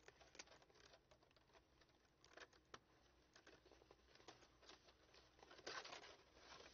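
Near silence with faint, scattered taps and rustles of hands pressing and smoothing tape onto card file folders, a little busier near the end.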